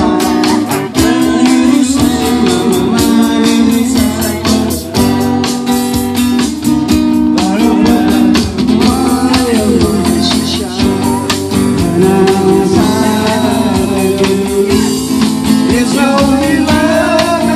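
Live band music: an acoustic guitar strummed while a man sings into a microphone, with an electronic percussion pad struck with drumsticks keeping the beat, all amplified through a PA system.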